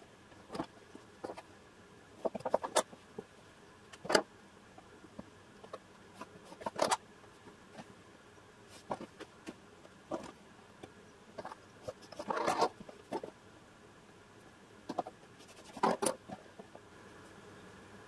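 Scattered handling sounds at a cutting mat: sharp taps and clicks as a metal ruler and tailor's chalk are picked up, moved and set down, with fabric rustling between them.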